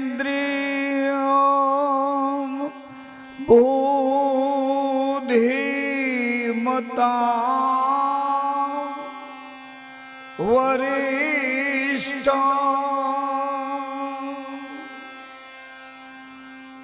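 A man singing a devotional melody in long held notes with a wide wavering vibrato, over a steady drone note. Each phrase starts strongly and fades into the drone, with three fresh phrases about 3.5, 5 and 10.5 seconds in.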